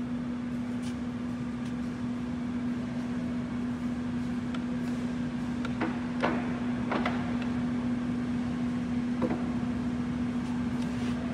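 OMP Prealpine NS-300 lathe humming steadily at one constant pitch, with a handful of short clicks and clunks as the headstock speed-change levers are worked.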